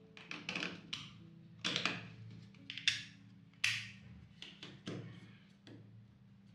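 Hands handling a circuit board and a thin acrylic panel: a quick series of clicks, taps and short scrapes as the board is pressed into place on the plate, the loudest three spread through the middle. Quiet background music runs underneath.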